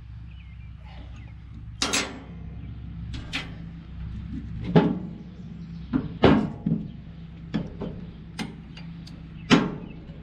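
Irregular metallic clanks and knocks, about eight of them, from hand work on the knotter mechanism of an Oliver 60 twine baler, over a steady low hum.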